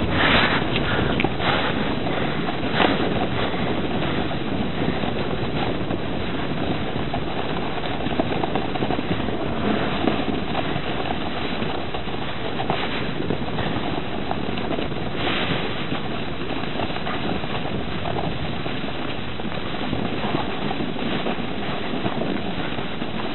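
Wind rushing over the camera microphone and a snowboard scraping across packed snow during a downhill run: a steady rushing noise with a few short knocks.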